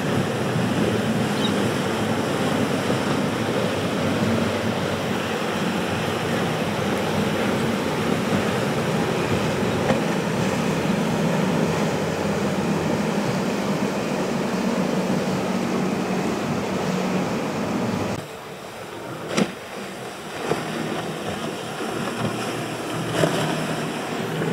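Motorboat engines running at speed through choppy inlet water, mixed with breaking waves. About three-quarters of the way in the engine sound drops away, leaving the surf and a couple of sharp knocks.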